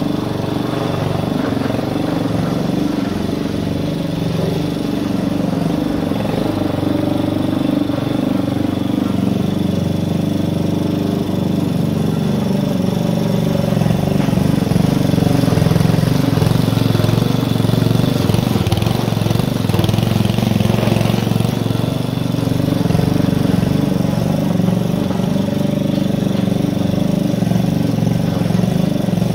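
Petrol rotary push lawn mower's engine running steadily while the mower is pushed through long grass.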